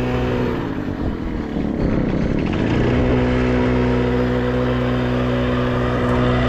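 Small 50 cc motorcycle engine running under throttle. Its steady note breaks up and shifts pitch between about one and three seconds in, then settles into a steady note again.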